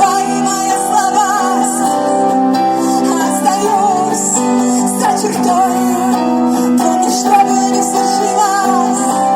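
Live band music: a high melody line sung or played with vibrato over sustained chords.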